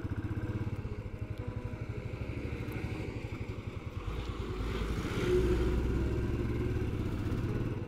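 Motorcycle engine running steadily under way, with an even pulsing beat; it swells louder, with a deeper rumble, from about four seconds in, easing back near the end.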